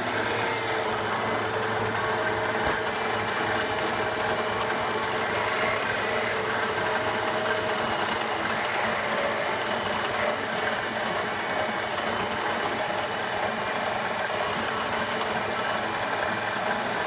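Milling machine spindle running with a drill cutting into a steel bar held in a vise: a steady, even machining noise with a faint hum of the machine underneath.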